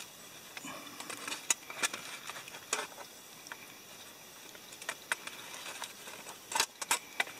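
Metal knife blade scraping and clicking against a stainless steel camp pot as dry-baked biscuits are pried loose and lifted out, with scattered short clicks and a sharper cluster of clinks near the end.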